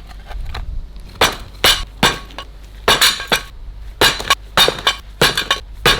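Bricks of a brick letterbox pillar being knocked apart, clinking and knocking against each other and the hammer: a quick, irregular series of about ten sharp, hard hits, some in close pairs.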